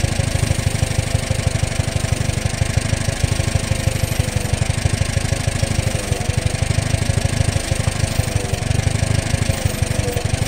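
An engine running steadily at idle, with an even, fast pulsing beat.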